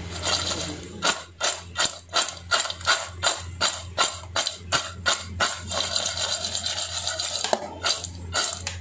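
French fries being tossed in a stainless steel bowl to coat them in seasoning, shaken against the metal in a rhythm of about three tosses a second. Near the end there is a short stretch of steadier shaking before the tossing picks up again.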